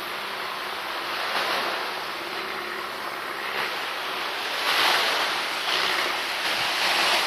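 Wind rushing over the microphone together with the wash of the sea on the beach: a steady rushing noise that swells about two-thirds of the way through.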